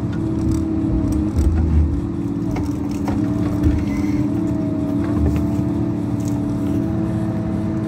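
Tigercat tracked forestry machine's diesel engine running steadily, with a steady whine over the rumble and a few sharp knocks.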